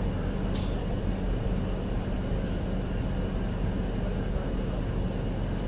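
Steady rumble and low hum of a moving passenger train, heard from on board, with a brief hiss about half a second in.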